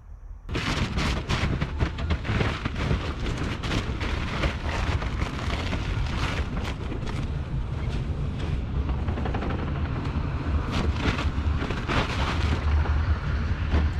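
Tracked excavator with a grab crushing fiberglass boat hulls: dense cracking and splintering over the steady low rumble of its diesel engine.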